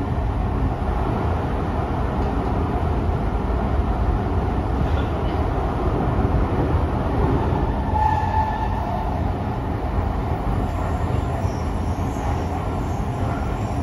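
Running noise heard from inside a Tokyo Metro 05 series subway car: a steady rumble of wheels on rail and traction equipment as the train travels, with a brief higher tone about eight seconds in.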